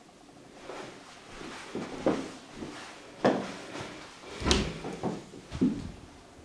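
A built-in cupboard door being opened by its handle: a run of knocks and clicks from the door and its catch, the sharpest about four and a half seconds in.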